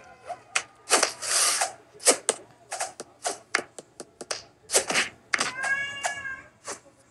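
Cartoon sound effects from a stick-figure animation: a quick run of sharp clicks and pops, a short noisy whoosh about a second in, and a brief squeaky pitched sound near six seconds.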